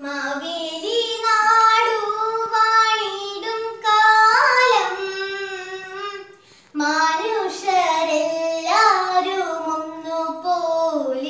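A young girl singing a melody with no accompaniment, in two long phrases with held notes and a short break a little past the middle.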